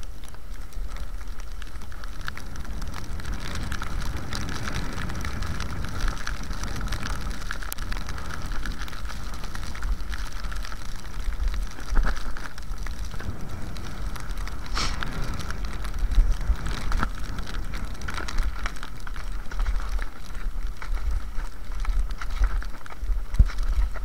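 Fischer cross-country skis hissing steadily as they glide in classic tracks on snow, with a few short clicks from ski poles planted in the snow and an uneven low rumble of wind on the microphone.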